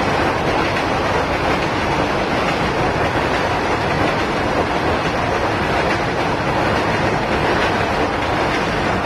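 Freight train's covered wagons rolling past on steel rails: a steady, even wheel-and-rail noise with no breaks.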